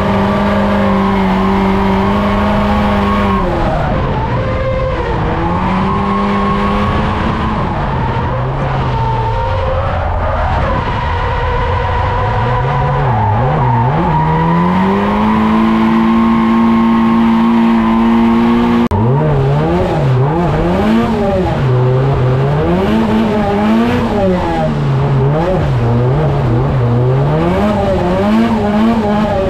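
Toyota AE86's swapped SR20DET turbo four-cylinder heard from inside the cabin while drifting, with tyres squealing. The revs are held high for a few seconds, drop away, climb and hold again, then for the last ten seconds rise and fall quickly about once a second.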